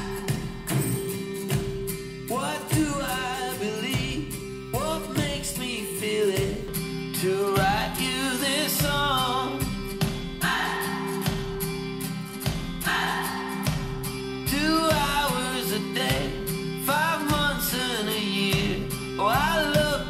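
A song with singing over a steady beat, played back through small JBL Control 1G monitor speakers and then, partway through, through Canton Plus XL speakers for comparison.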